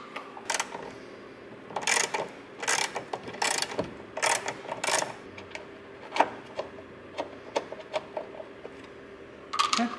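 Socket ratchet clicking as 10 mm bolts are loosened, in short bursts of clicks about once a second through the first half, then scattered fainter clicks.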